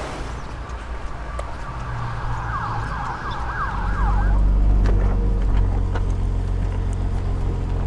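An emergency-vehicle siren wails in a fast yelp, rising and falling about four to five times a second, for about two seconds. About halfway through, a low, steady motor-vehicle engine rumble comes in and keeps going.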